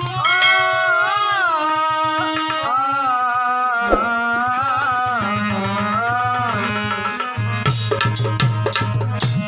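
Instrumental introduction to a devotional bhajan: a sliding melodic lead over a steady tabla-style beat, with a quick run of drum strokes near the end.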